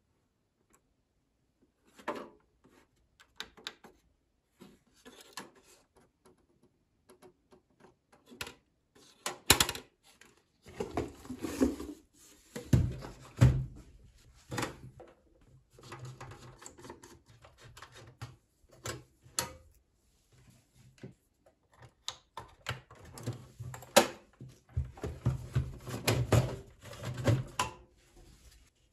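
Handling noise from a VCR's sheet-metal cabinet: scattered clicks, knocks and scrapes, with denser clattering near the end as the top cover is lifted off the chassis.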